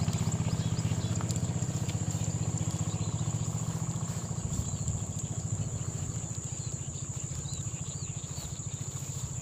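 A small engine runs with a steady, fast low throb that slowly fades, over a steady high insect drone with faint chirps.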